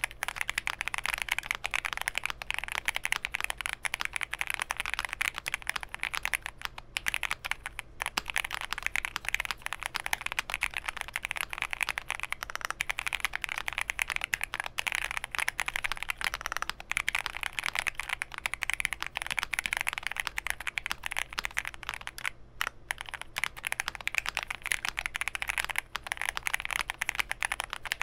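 Fast continuous typing on a custom mechanical keyboard with lubed linear Gateron Ink Black switches on a POM plate, foam-dampened and fitted with GMK keycaps: a dense stream of clacks with a few short pauses.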